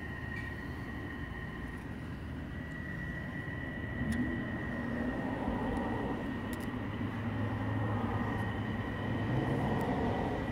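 Steady low rumble of distant engine noise that grows louder about four seconds in, with a faint steady high-pitched whine throughout.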